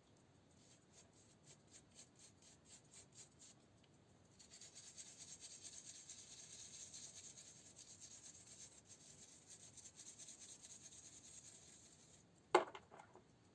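Hand rubbing on a hard surface: a few short separate strokes, then several seconds of quick back-and-forth rubbing. A sharp knock near the end.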